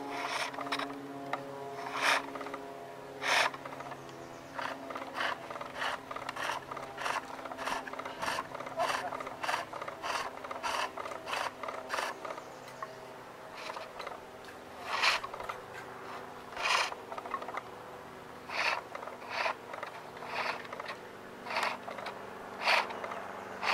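Skew chisel cutting a maple spool blank on a foot-powered pole lathe: a run of short cuts, one with each turn of the work toward the edge, close together through the middle and sparser near the end.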